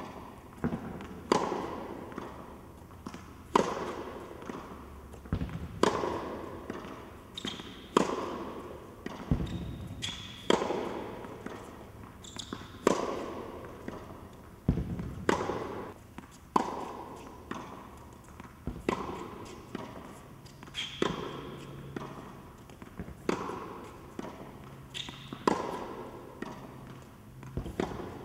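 Tennis ball struck by rackets and bouncing on an indoor hard court during a rally: sharp pops about every second or two, each ringing on in the hall's echo.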